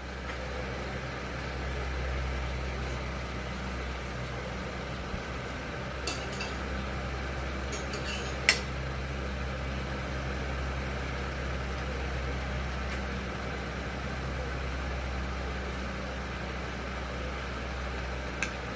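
A steady low mechanical hum with a few short sharp clicks, the loudest about eight and a half seconds in.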